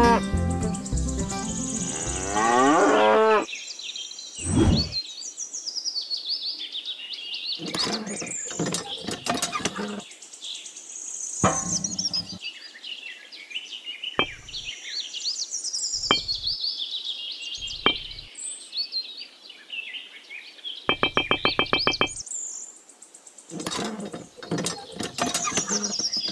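Birds chirping and tweeting, with scattered taps and clicks of small parts being handled and a short fast rattle about three-quarters of the way through.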